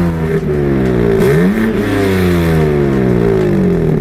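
BMW M4 Competition's twin-turbo inline-six being revved in a free-rev blip. The revs are falling at first, jump up sharply just over a second in, and then fall slowly back down.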